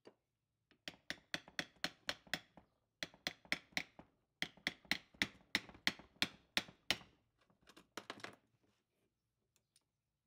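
Rapid runs of sharp metallic clicks, about four a second, each with a short ring, as the 1930s Sioux bench grinder's wheel and spindle are turned and worked by hand. There are three longer runs and a brief one near the end.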